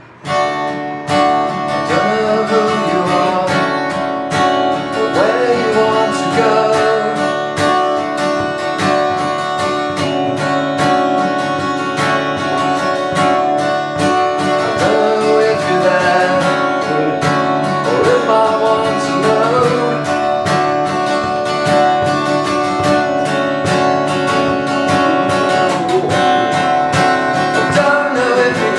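Acoustic guitar strummed steadily, starting abruptly, with a man singing over it at times.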